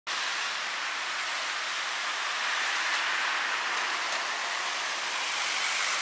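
Steady, even hiss with no distinct events in it.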